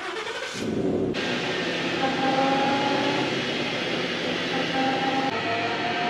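A pickup truck started up on the lift, its driveline turning in a steady run, with a faint held whine over it from the rear differential, where a badly worn pinion bearing is howling.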